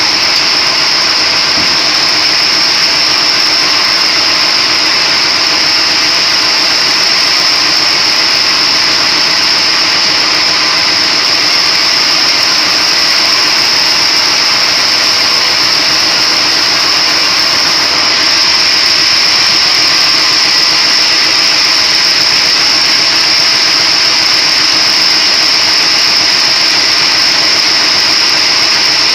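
A motor-driven splitting machine running steadily and loudly, with a constant high-pitched whine over a dense mechanical noise.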